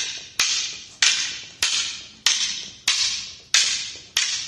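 Wooden fighting sticks clacking together as strikes are blocked in a double-stick partner drill, a steady series of sharp knocks about one every 0.6 seconds. Each knock has a brief echo.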